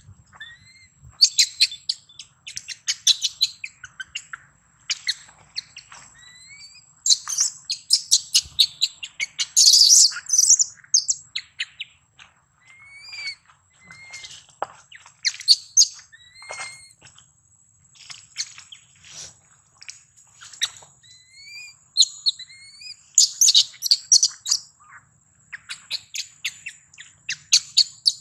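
Newborn long-tailed macaque squeaking: many short, high, rising chirps, often in quick clusters, the calls of a hungry infant trying to nurse.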